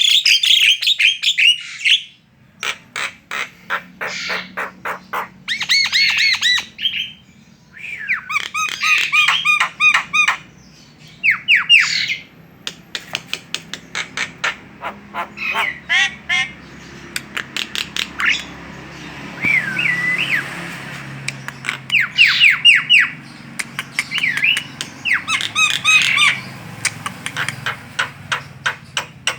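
Javan myna chattering loudly: runs of rapid sharp clicking notes, harsh squawks and short gliding whistles, in bouts broken by brief pauses.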